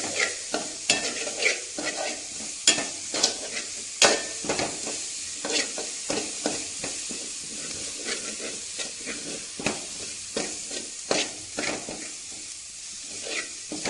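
Oil sizzling in a metal pan as garlic, green chillies, curry leaves and mustard seeds fry, with a metal spoon scraping and clinking against the pan at irregular intervals. The mix is being sautéed until its moisture cooks off.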